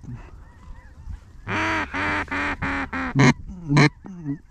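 Duck call blown by a hunter: a cadence of about five evenly spaced quacks, then two sharp notes that drop steeply in pitch.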